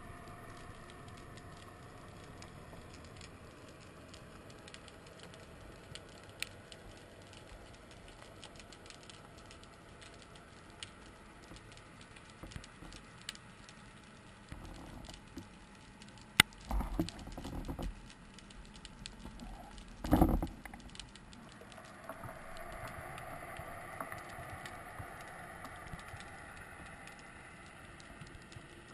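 Underwater ambience over a rocky seabed: a steady crackle of fine clicks, typical of snapping shrimp. A sharp click about sixteen seconds in, then a few short low thumps and rushes of noise around seventeen and twenty seconds.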